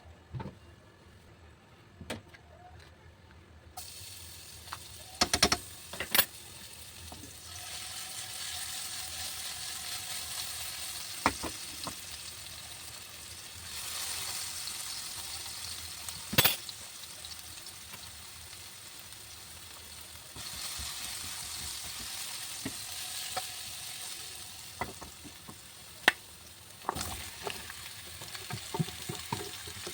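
Food sizzling in a hot pan while it is stir-fried, with the clinks and knocks of a utensil against the pan. The sizzling starts about four seconds in, and its strength goes up and down from there.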